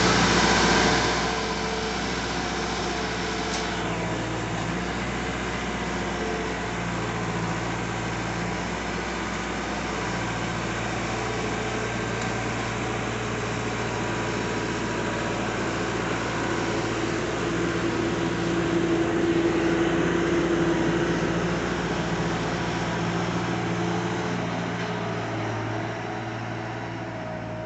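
Bobcat 863 skid-steer loader's diesel engine running steadily as it lifts and carries large square hay bales, the engine note shifting with the hydraulic load. It is loudest in the first second and swells again for a few seconds about two-thirds of the way through.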